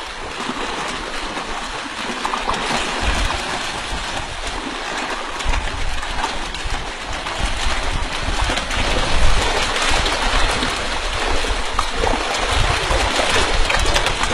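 Water splashing and churning steadily as fish thrash at the surface, going after bait of fish guts dropped into the water.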